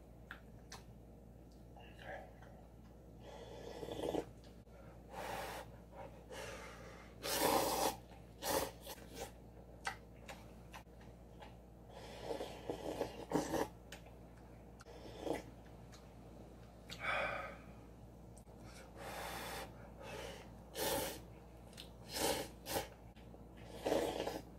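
A person slurping cup noodles, sucking up noodles and broth from the paper cup in a dozen or so short, irregular slurps, with sniffs from a runny nose mixed in.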